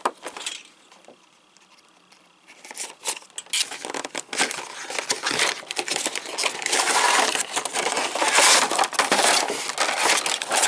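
Action-figure packaging being opened by hand: cardboard box flaps and a clear plastic blister tray crinkling and crackling with many small clicks. The noise starts after a quiet couple of seconds.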